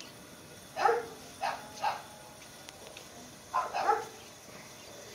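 Puppy barking in short yaps: three quick ones about a second in, then two more near the four-second mark.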